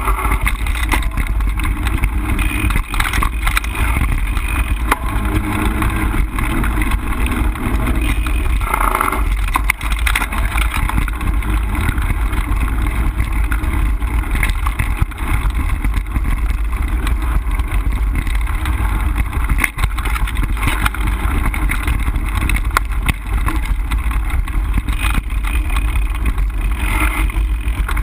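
Mountain bike riding fast over dirt singletrack, heard from a handlebar-mounted camera: a steady rumble of wind and tyre noise, with many small clicks and rattles from the bike over bumps.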